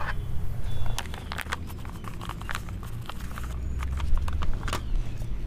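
Garden soil being scooped by hand and dropped into a large flowerpot: a run of short scrapes and soft knocks over a steady low rumble.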